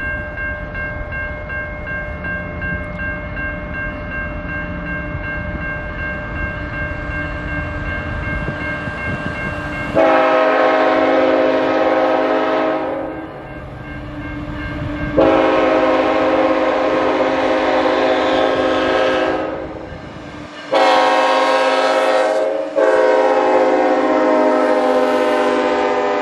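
Air horn of a CN freight train led by two GE ET44AC locomotives, sounding the grade-crossing signal: two long blasts, a short one and a final long one held as the locomotives reach the crossing. Before the horn, about ten seconds of low rumble.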